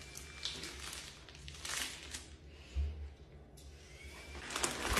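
Faint crinkling and rustling of a plastic hot dog package being handled, in short bursts, with a low thump just past halfway.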